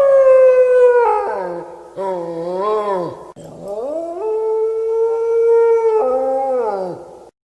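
A canine howling: three long drawn-out howls, the second wavering up and down, the last rising and then held before falling away.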